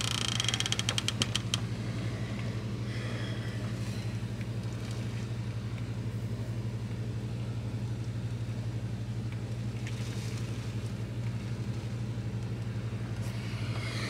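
Tropical-storm wind and rain as an even rushing noise over a steady low hum, with a quick run of ticks in the first second and a half.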